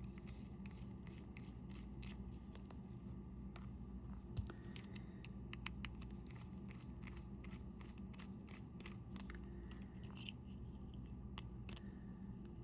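Faint, scattered small clicks and light scrapes of tools and small parts handled while opening a G-Shock watch's case back, over a steady low hum.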